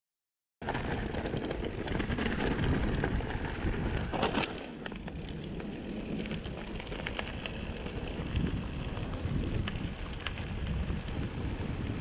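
Mountain bike descending a dirt track: tyres rolling on dirt and loose gravel with a steady noise, and short rattles and knocks from the bike over bumps. It starts suddenly about half a second in.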